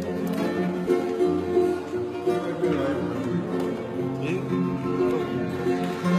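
Several acoustic guitars strummed together with other plucked strings, playing a steady song as a small string band.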